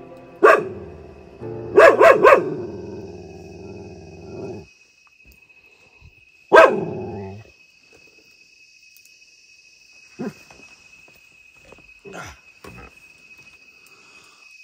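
A dog barking in sharp, separate barks: one about half a second in, a quick run of three around two seconds, another loud one a few seconds later, then a few quieter barks near the end.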